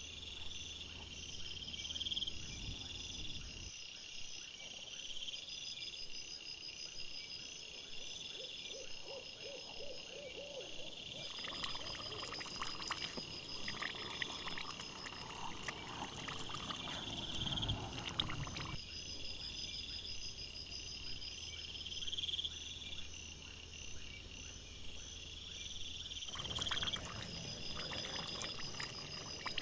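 Night insects chirping in a steady repeating pattern. At two points, in the middle and near the end, this is joined by crackling and clicking noise from wild boars rooting and feeding on the ground.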